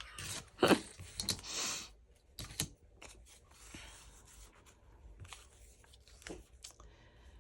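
Book-page paper being handled and torn: a few short tearing rasps and clicks in the first couple of seconds, then faint rustling of the paper.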